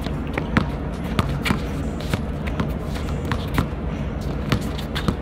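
A basketball being dribbled on an outdoor court, the bounces coming at an uneven rate of about two a second over a steady low hum.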